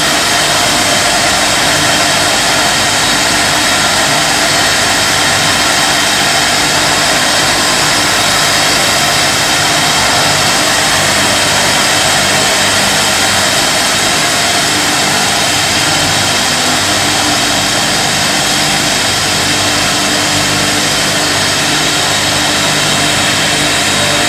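Jam jar production line running: conveyors and filling and capping machinery make a steady, loud, unbroken noise with a constant hum beneath it.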